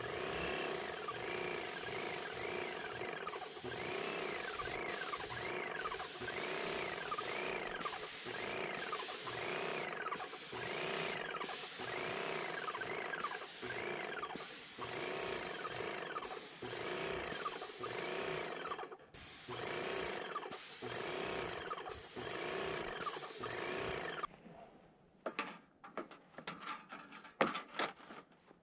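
Airless paint sprayer running: a steady hiss of paint spraying from the gun, with brief dips, over a rising-and-falling whine from the pump that repeats about once a second. The spraying stops about 24 seconds in, leaving a few scattered clicks and knocks.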